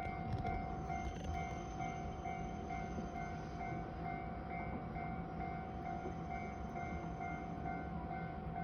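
Shinkansen bullet train pulling into or standing at the station, heard as a steady low rumble. Over it runs a steady tone that pulses evenly.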